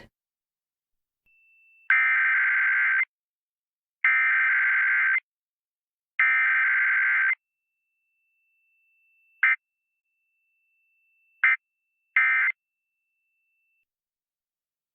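Emergency Alert System digital data bursts: three harsh, buzzy bursts about a second long and two seconds apart, then three short blips, the end-of-message code, over a faint thin steady tone.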